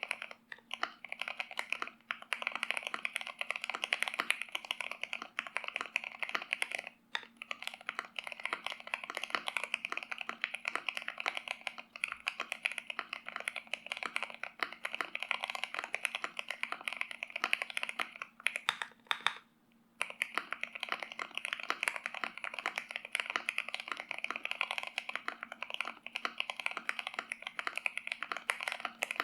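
Steady, fast typing on an Akko MOD005 mechanical keyboard with stock Gateron Oil King linear switches, an FR4 plate and Akko ASA-profile keycaps, dampened with case foam, plate foam, a PE sheet and a two-layer tape mod. The keystrokes come in a dense stream with short pauses about seven seconds in and again around nineteen seconds. A faint steady hum runs underneath.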